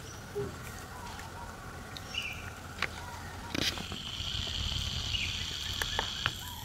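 Outdoor ambience: a steady low rumble with a few small clicks and a brief high chirp. A steady high buzz sets in about four seconds in.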